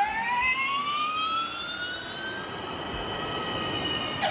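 Synthesized title-sting sound effect: a rising electronic sweep with many overtones that climbs steadily and levels off, ending in a short hit near the end.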